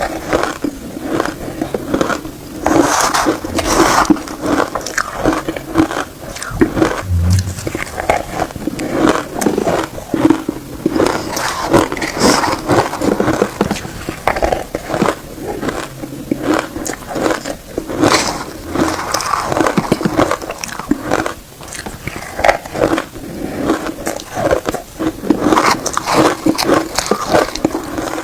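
A person biting and chewing shaved ice topped with matcha: a continuous, irregular run of crunches.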